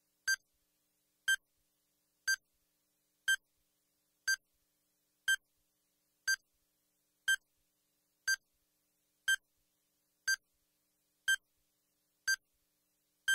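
A short electronic beep repeating steadily about once a second, about fourteen times, every beep the same pitch and length.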